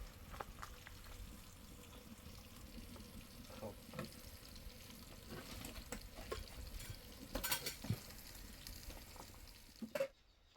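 Food sizzling in a pan over an open fire: a steady low sizzle with scattered clicks and knocks, a cluster of them about two thirds of the way through. It cuts off suddenly near the end.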